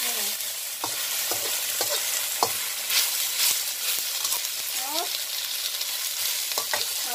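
Oyster mushrooms and vegetables sizzling in hot oil in a wok, stir-fried with a metal spatula that scrapes and knocks against the pan every second or so.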